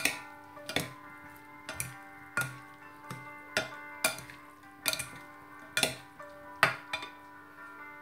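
Plastic salad servers tossing a chopped salad in a ceramic bowl, clacking against the bowl about once a second at uneven intervals, over steady background music.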